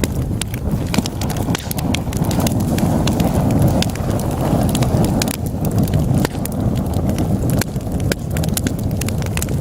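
Wood fire burning in a fireplace: logs crackling with many sharp pops and snaps over a steady low rush of the flames.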